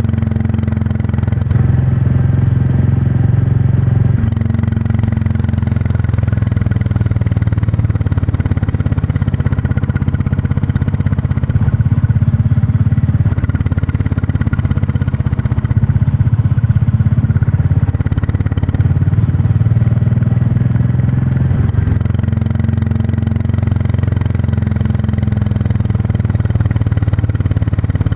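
Royal Enfield Classic 350's single-cylinder engine and exhaust running steadily while riding, the engine note shifting a little up and down several times with the throttle.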